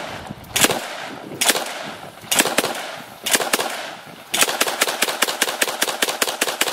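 AA-12 fully automatic 12-gauge shotgun firing: four single shots about a second apart, then, about four seconds in, a sustained full-auto burst of about a dozen shots at roughly five a second. The single shots come from trigger control alone, since the gun has no select-fire switch.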